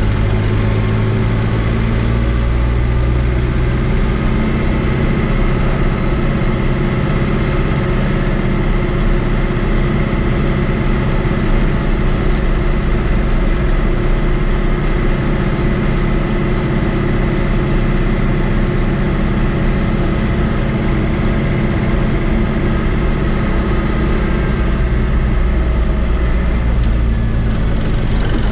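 Fiat 80-90 DT tractor's four-cylinder diesel engine running steadily as the tractor drives along the road, heard from inside the cab.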